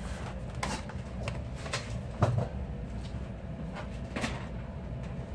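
Small tools and multimeter probes handled on a workbench: a series of short clicks and knocks, the loudest with a dull thump a little over two seconds in, over a steady low background hum.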